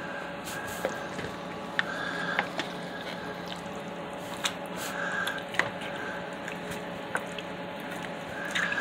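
A utensil stirring a thick, creamy sauce with oxtail and vegetables in a slow-cooker crock: soft wet squelching with scattered sharp clicks of the utensil against the crock, over a steady low hum.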